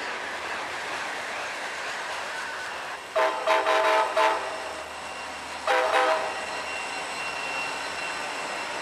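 A diesel freight locomotive's air horn sounds twice: a blast about a second long a little after three seconds, and a shorter one near six seconds. Between and around them the passing train and heavy rain make a steady hiss.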